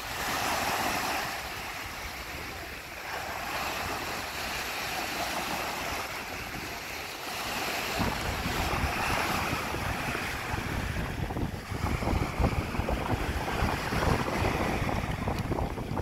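Surf breaking and washing up over the sand in rough, choppy water. From about eight seconds in, wind buffets the microphone in gusts.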